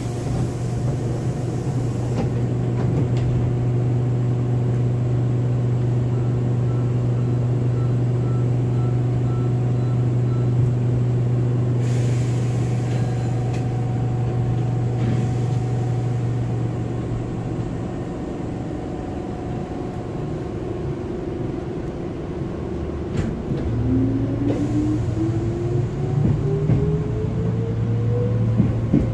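Hankyu 7000 series electric train running, heard from inside: a steady low hum with rail rumble and a few brief rushes of noise. In the last few seconds a motor whine rises steadily in pitch as the train picks up speed.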